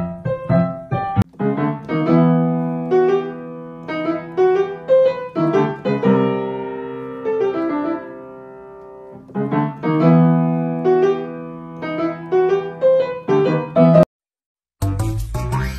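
Background piano music, single notes and chords struck and left to ring. About fourteen seconds in it cuts off abruptly and, after a moment of silence, a livelier track with percussion starts.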